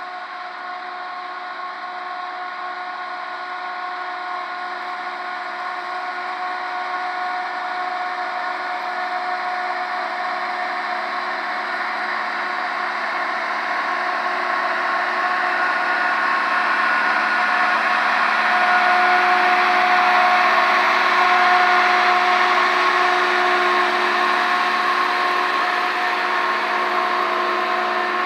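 Rail track maintenance machine running along the rails, its engine and a steady whine growing louder as it approaches, loudest about three-quarters of the way through, then easing slightly as it passes.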